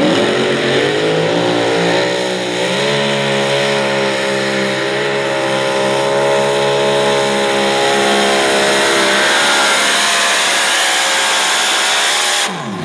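Mini modified pulling tractor's engine at full throttle under load during a hook, holding a steady high pitch with a slight dip about two seconds in. It shuts off and winds down abruptly near the end.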